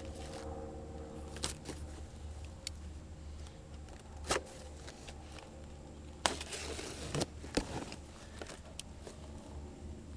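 Packaging being handled while unboxing parts: plastic rustling and crinkling, loudest about six to seven seconds in, with several sharp clicks and knocks as pieces are moved, over a steady low hum.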